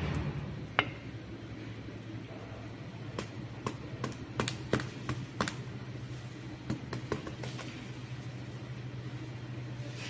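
Small metal hand trowel scooping potting soil and knocking against a thin plastic cup as it is filled, a string of sharp clicks and scrapes bunched in the middle, over a steady low background hum.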